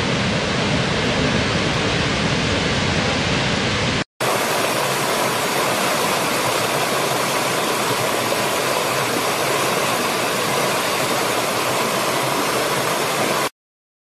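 Steady rush of a large waterfall, deep and full. About four seconds in it cuts out for a moment and gives way to a shallow stream running over rocks, with less low rumble. That sound stops abruptly shortly before the end.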